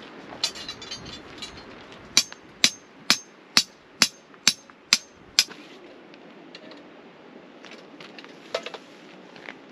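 A series of about eight sharp knocks, evenly spaced at roughly two a second, beginning about two seconds in, after a brief crackling rustle; a few fainter clicks follow near the end.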